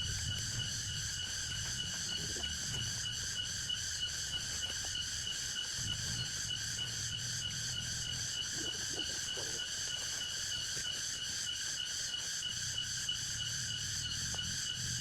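A forest insect chorus: a steady, rapidly pulsing trill at several high pitches, with a low rumble underneath.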